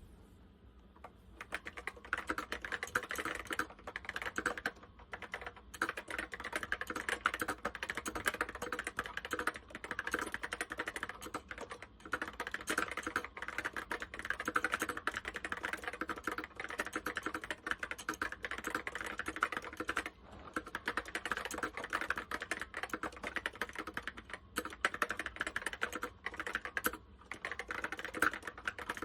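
Fast, steady typing on an Apple M0110 keyboard with Alps SKCC Tall Cream switches: a dense run of key clicks starting about a second and a half in, broken by a few short pauses.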